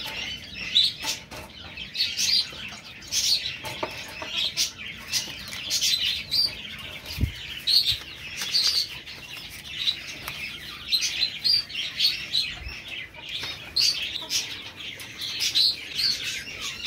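A cageful of small birds chirping, many short overlapping calls going on without a break. Two dull low thumps stand out, about seven and twelve and a half seconds in.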